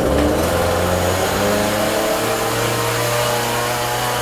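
Ryobi RCS4240NB 42cc two-stroke chainsaw engine running steadily on its own, just started from cold with the choke pushed back in.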